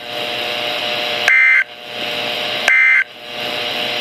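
NOAA Weather Radio SAME end-of-message code: two short bursts of warbling two-tone digital data, about 1.4 seconds apart, with a third starting at the very end. These bursts signal the end of the alert. Between them a steady radio hiss runs on.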